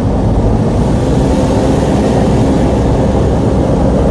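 Vehicle engine and road noise, a steady rumble, from a car driving along a paved road.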